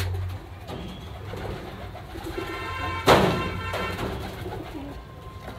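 Pigeons cooing softly in a coop, with a sudden loud thump or scuffle about three seconds in as a squab is handled.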